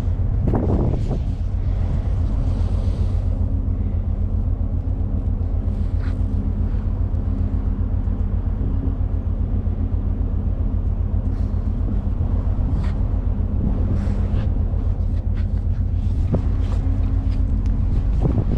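A steady low engine drone holding a constant pitch, with a light wind rumble and a few faint scattered knocks.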